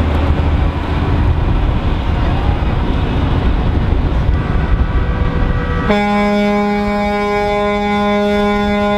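Semi-truck rolling with engine and road rumble; a fainter horn tone joins about four seconds in. About six seconds in, a truck air horn blasts and is held steadily at one pitch.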